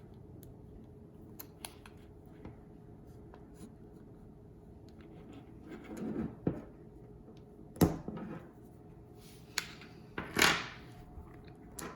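Small plastic and metal opening tools prying and picking at an iPhone 8's glued screen: scattered light clicks and scrapes, a sharper click a little past halfway and a brief rush of scraping noise near the end.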